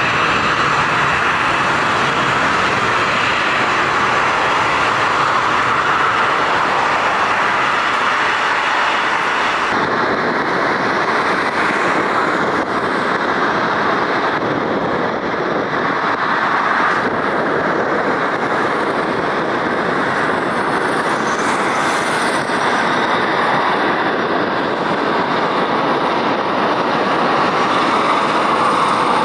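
Aircraft engines running with a loud, steady rushing noise. About ten seconds in, the higher hiss falls away while the engine noise continues.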